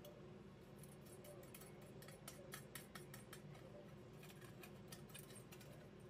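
Faint, scattered small clicks and ticks of metal parts being handled: coax barrel connectors being fitted through the holes of a metal faceplate, over a low steady hum.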